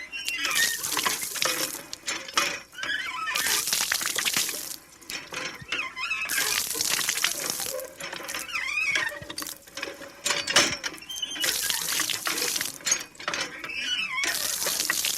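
Manual lever water pump being worked: the handle squeaks and creaks on each stroke, alternating with gushes of water pouring from the spout, in a repeating rhythm of about one stroke every two to three seconds.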